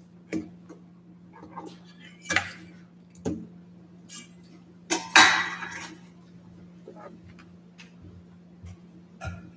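Communion trays being handled on a table: scattered clinks and knocks, with one louder ringing clatter about five seconds in, over a steady low hum.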